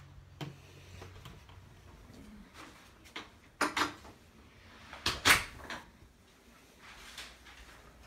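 An interior door being handled: a few sharp clicks and knocks of the knob, latch and door, in two clusters about three and a half and five seconds in, the second the loudest.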